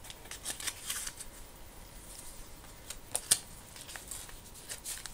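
Paper pages of a journal being turned and handled close to the microphone: crisp rustles and clicks in clusters, with a sharp paper snap a little after three seconds.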